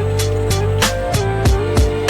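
Background music with a steady beat: deep kick-drum hits under a repeating stepped melody.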